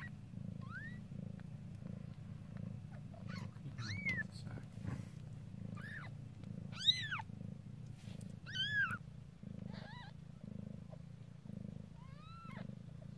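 Mother cat purring steadily while her newborn kittens give about six short, high-pitched squeaky mews, each rising then falling in pitch; the loudest comes about seven seconds in.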